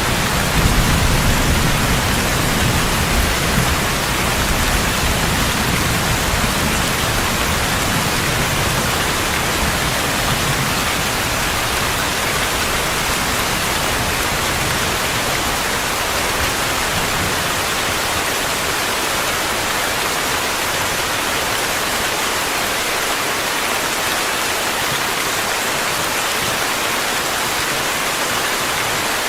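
Steady rain, an even hiss of falling drops. A low rumble of thunder dies away over the first several seconds.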